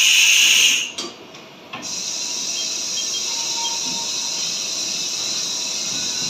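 A loud hiss that cuts off about a second in, then after a short lull a steadier, softer hiss starts and keeps going.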